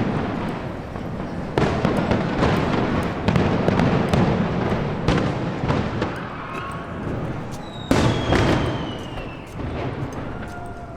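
Aerial fireworks going off: a string of sharp bangs, each trailing into a low echoing rumble, with a falling whistle about eight seconds in.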